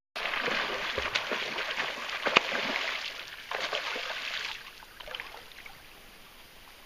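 Hooked king (chinook) salmon thrashing at the river surface: a run of heavy splashes, loudest about two and a half seconds in, that die away after about four and a half seconds into a few smaller splashes.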